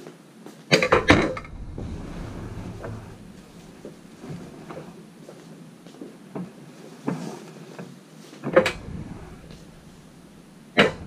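Suit jackets on clothes hangers being handled and laid on a shop counter right by the microphone: a quick cluster of clacks and knocks about a second in, cloth rustling and small taps, then two more single sharp knocks later on.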